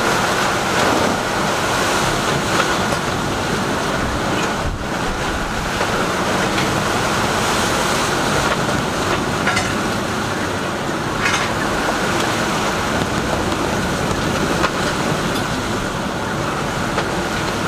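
Steady rush of wind and sea around a sailing yacht under way in a rough, choppy swell, with wind buffeting the microphone.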